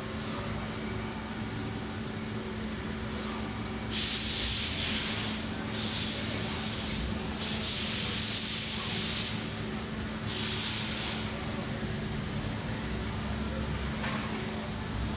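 CNC router running with a steady machine hum, broken by four loud bursts of hissing air, each a second or two long, in the middle.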